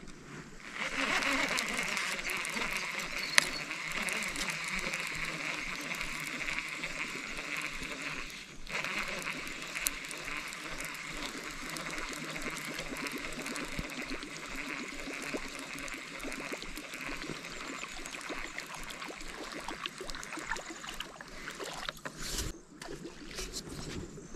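Steady rush of river water running over rocks, with a couple of sharp clicks.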